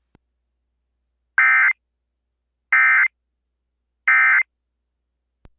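Emergency Alert System end-of-message data bursts: three short, identical buzzy electronic bursts about 1.4 s apart, the digital code that closes an EAS alert.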